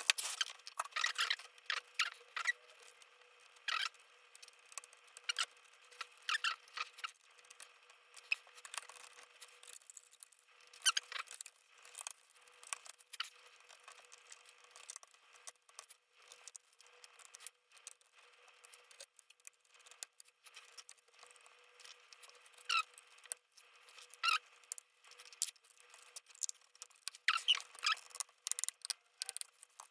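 Irregular clicks, taps and short scratchy squeaks of small plastic and metal laptop parts being handled and fitted, with quiet gaps in between and a busier cluster of clicks near the end.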